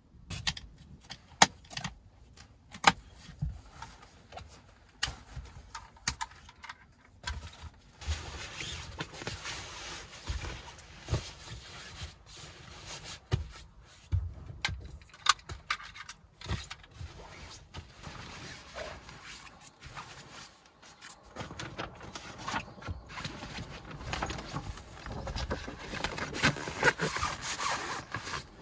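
Irregular knocks, clicks and scraping or rubbing of objects being handled, busier in the second half.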